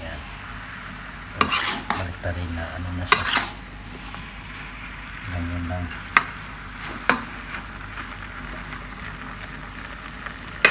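Spatula stirring and tossing shredded stingray and vegetables in a wok as they sauté, over a light steady sizzle. Several sharp clicks and scrapes of the spatula against the wok, the loudest about three seconds in.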